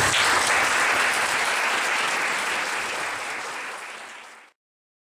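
Audience applauding, the clapping slowly dying down before the sound cuts off suddenly about four and a half seconds in.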